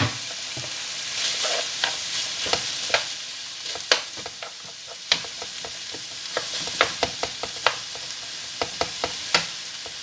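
Minced beef and chopped onion sizzling in olive oil in a frying pan as the mince browns, with a steady hiss. A utensil stirring the pan clicks and knocks against it many times at irregular intervals.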